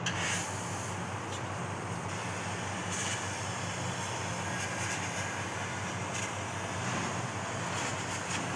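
Fiber laser cutter cutting sheet steel: a steady high hiss from the assist-gas jet at the cutting head, which comes on at the very beginning, with short crackles through it over a constant low machine hum.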